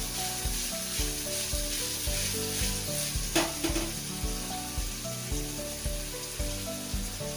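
Paneer cubes sizzling as they shallow-fry in ghee in a small kadai. Background music with a steady beat plays underneath, and a single short clink comes about three seconds in.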